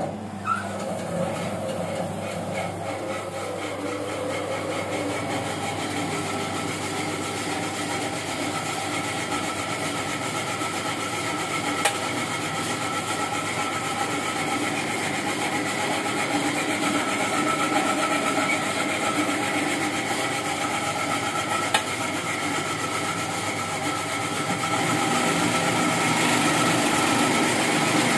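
Homemade foam-cutting machine switched on and running steadily, giving a continuous machine hum with several steady tones. It gets a little louder near the end, with a couple of single sharp clicks along the way.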